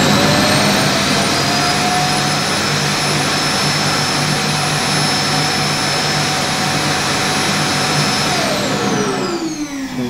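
Roomba i7's auto-empty dock (Clean Base) running its suction motor to empty the robot's bin: a loud rushing with a steady high whine. About eight and a half seconds in the motor spins down, the whine falling in pitch as the noise dies away.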